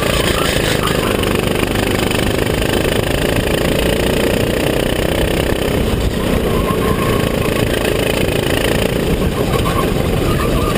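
Racing kart engine running hard at speed, heard from a camera mounted on the kart, with rough rushing noise over it; the pitch dips briefly about six seconds in.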